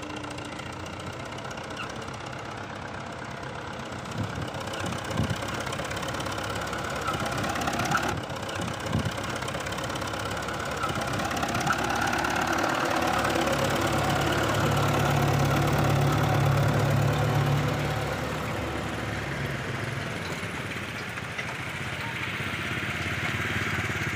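Diesel tractor engine running under load as it hauls a trolley heavily loaded with sugarcane. It grows louder as the tractor draws near and passes, loudest a little past the middle, then eases off, with a few knocks in the first half.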